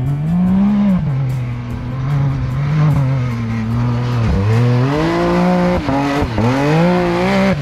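Can-Am Maverick X3 side-by-side's engine revving hard under throttle on a dirt trail, its pitch rising and falling, with two sharp dips about four and six seconds in.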